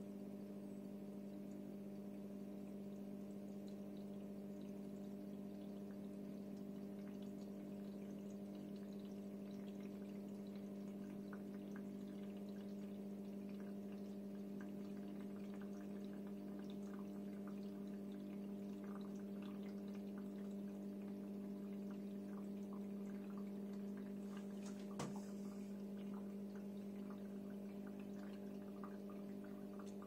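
Cookology CMDW2 tabletop dishwasher filling with water: a steady low hum from the machine, with water trickling and dripping into the tub, more audible from several seconds in. One brief tick near the end.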